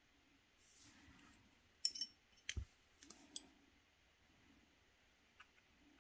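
Quiet watercolour painting: a soft brush stroke on paper about a second in, then a handful of light, sharp clicks and one duller tap over about a second and a half, and a last faint click near the end.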